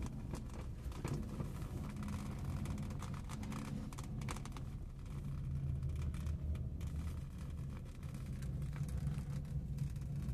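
A car's engine and road noise give a steady low rumble, with scattered light clicks and rattles.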